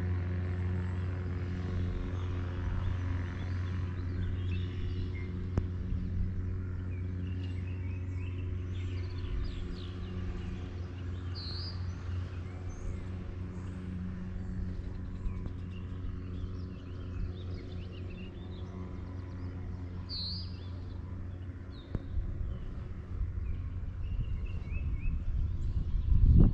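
Birds chirping, one short call repeating twice, over a steady low engine hum that fades slowly; a low rumble builds near the end.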